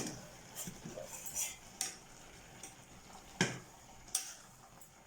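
Metal utensils clinking and scraping against a brass cooking pot of nearly cooked red rice: a handful of sharp clinks, the loudest about three and a half seconds in.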